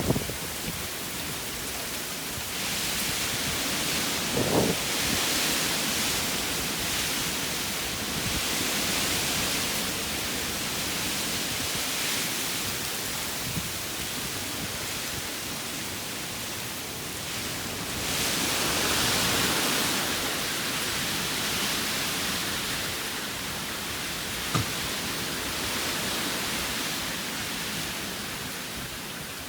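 Heavy storm rain and wind, a steady hiss that swells in two long gusts. There is a short thump about four seconds in.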